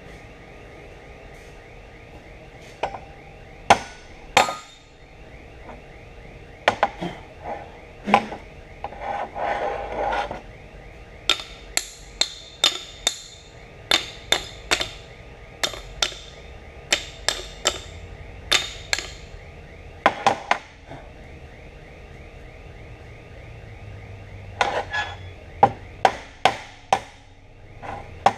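Hand hammer striking steel tubes tack-welded to a steel plate table: sharp metallic blows in irregular runs, coming faster near the end. One tack comes away too easily, the sign of a tack weld that did not hold.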